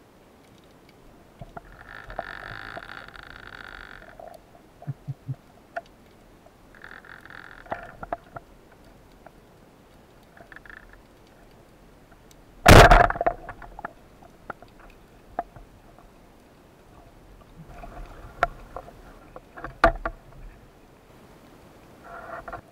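Underwater sound of a band-powered speargun: a single sharp, loud crack about halfway through as the gun is fired. Scattered clicks and knocks run through the rest, and a faint hum comes and goes twice in the first eight seconds.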